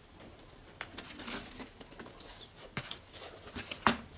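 Close-miked open-mouth chewing of a mouthful of rice and oily mutton curry, with wet smacks and small mouth clicks. One sharp click near the end is the loudest sound.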